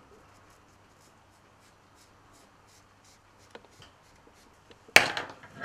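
Felt-tip pen rubbing and scratching faintly on a deer-hair fly, colouring it green. About five seconds in comes a sharp metallic click, then a second one, as the fly is released from the fly-tying vise jaws.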